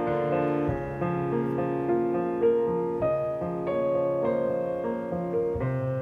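Background piano music, single notes sounding over held chords.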